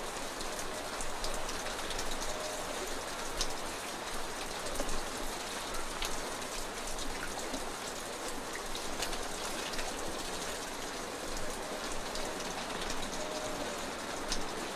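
Steady rain pattering on a surface, with many small sharp drop ticks scattered through it.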